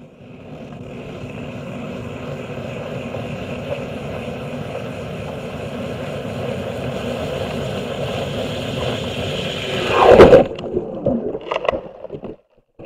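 Underwater sound picked up by a camera beneath the ice: a steady rumbling noise that slowly grows louder, peaks about ten seconds in with a loud burst falling in pitch, then a few shorter knocks.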